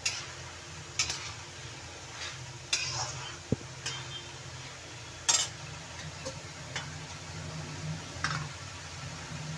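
Steel spatula stirring and scraping a thick potato-and-cauliflower masala in an aluminium kadhai, with irregular scrapes and knocks against the pan, the loudest a little past halfway. The mixture sizzles softly over a steady low hum.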